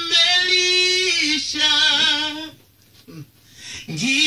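A voice singing long, held notes that slide between pitches, with a short pause about two and a half seconds in, then the singing picks up again near the end.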